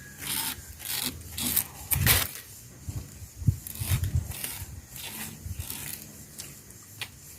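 Someone chewing and tearing at a stalk of soft 'cana fita' sugarcane, with irregular crunching and rasping of the fibrous cane, loudest about two seconds in.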